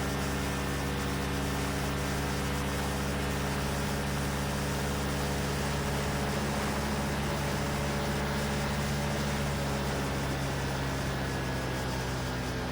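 Quicksilver MXL II ultralight's engine and propeller running at a steady power setting, mixed with a steady rush of air noise. The engine note shifts slightly near the end.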